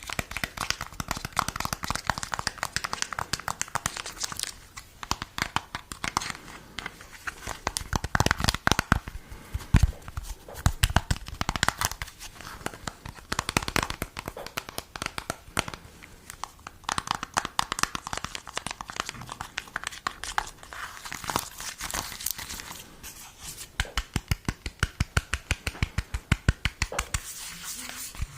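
Close-miked ASMR trigger sounds: dense crinkling and crackling made of many sharp little ticks, turning into a fast, even run of ticks near the end.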